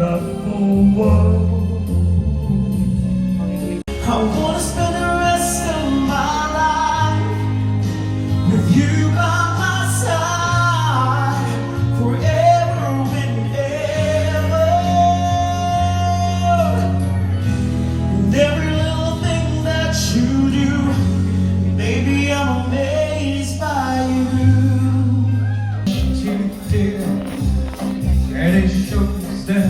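Karaoke singing over a recorded backing track: a solo voice carries the melody with long held notes over a steady bass line. The voice comes in about four seconds in.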